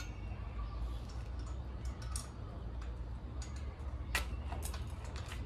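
Scattered light metallic clicks and ticks of wire being hooked onto a chain-link fence by hand, one sharper click about four seconds in, over a steady low rumble.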